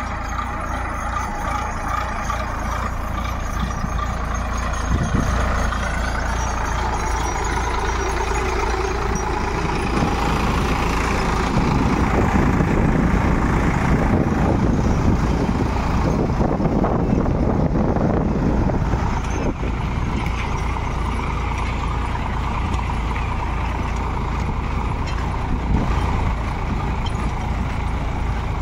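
Sonalika tractor's diesel engine running steadily under load while pulling a spring-tine cultivator through soil, louder as the tractor passes close by around the middle.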